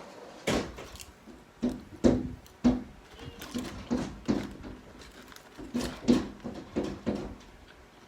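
Children banging on a door: a run of uneven, woody thumps, roughly two a second.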